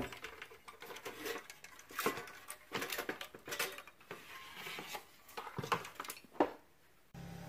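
Faint, scattered clicks and knocks of an amplifier circuit board and its sheet-steel chassis being handled and set down, with a sharper knock near the end.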